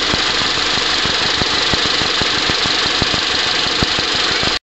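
Car engine idling, heard in the open engine bay as a steady loud rumble with rapid irregular ticking. The sound cuts off abruptly near the end.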